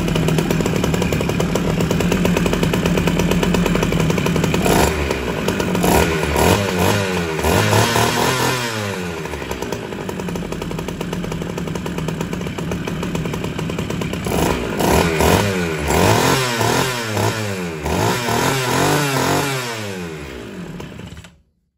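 Two-stroke chainsaw engine, a bare powerhead without bar or chain, running fast and revved up and down repeatedly, then cutting out suddenly near the end. The saw has just been rebuilt with slightly undersized bearings shimmed with aluminium tape.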